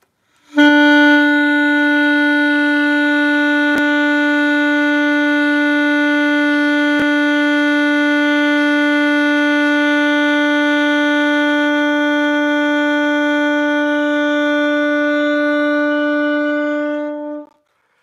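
Saxophone playing one long tone, steady in pitch and loudness for about seventeen seconds, held at a strong forte to the end of the breath and then stopped: a long-tone exercise for building a strong, consistent sound.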